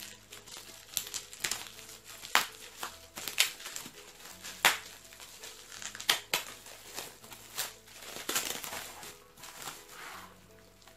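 Plastic bubble wrap crinkling and crackling as it is pulled off a CD album by hand, in an irregular run of sharp crackles.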